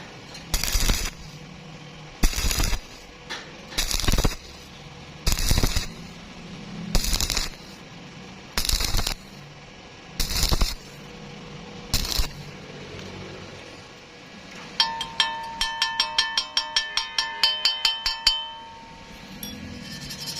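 Metal being worked by hand: about eight rough strokes roughly a second and a half apart, then, after a short pause, a quick run of ringing metallic taps, three or four a second, for a few seconds.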